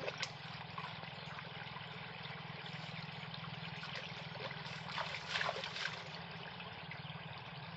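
Water running fast through a narrow irrigation canal and trickling past a bamboo fish trap set in the flow, with a few brief splashes about five seconds in. A steady low hum sits underneath.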